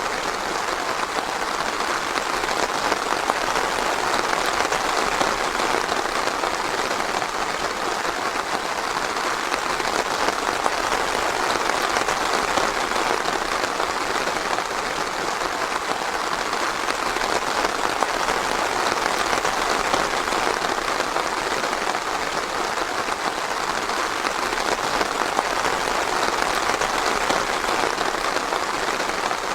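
Steady rain falling in a forest, a constant dense patter of drops on leaves and ground with no let-up.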